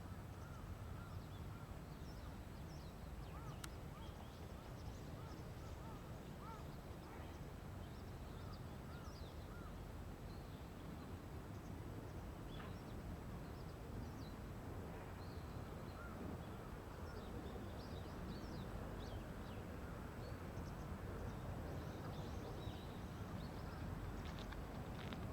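Birds calling in many short chirps over a steady low rumble of outdoor noise.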